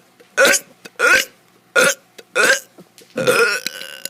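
A child burping in a quick run of short, loud burps, about five of them, the last one longer.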